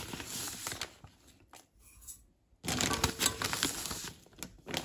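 Granulated sugar poured from a glass into a stainless steel pot, a grainy hiss that stops about a second in. After a short pause, more grainy rustling for about two seconds as more sugar goes in.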